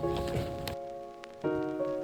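Soft instrumental background music with sustained chords. A light crackly noise under the music stops just under a second in, and a new chord comes in about a second and a half in.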